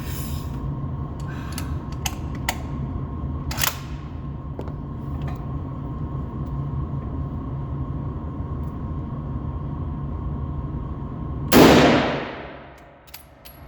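A single bolt-action rifle shot about three-quarters of the way in, loud and sudden, with its echo fading away over a second or so. Before it there is a steady low rumble and a few faint clicks.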